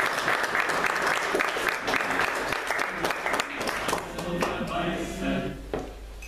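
Audience applauding, a dense patter of claps that fades out about five seconds in, with a few voices heard as it dies away.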